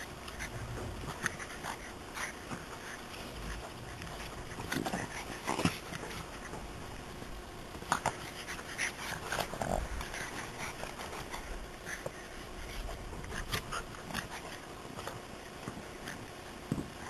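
A French bulldog and a larger dog play-fighting: scattered short, irregular dog noises and scuffles over a steady low hiss.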